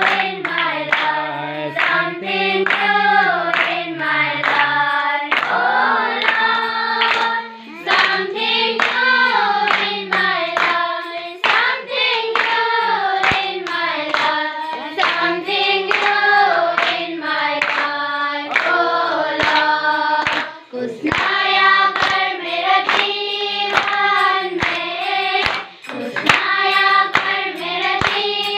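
A group of children singing a devotional bhajan together in unison, clapping their hands in time with the tune.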